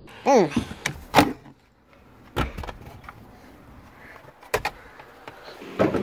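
A short squeak that falls in pitch, then a series of sharp knocks and clunks spread out over several seconds.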